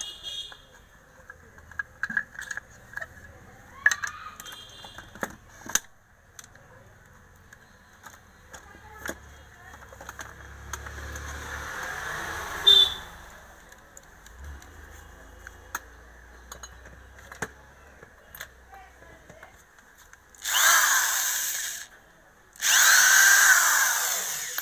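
Electric hand planer motor switched on in two short runs near the end, each about a second and a half, after a stretch of handling clicks and knocks. The machine runs hot and noisy: its armature bearing is worn and jammed.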